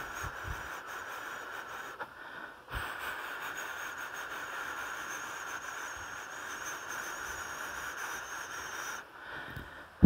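Dunhinda Falls, a tall waterfall, rushing with a steady, even hiss. The sound dips briefly about two seconds in and again near the end.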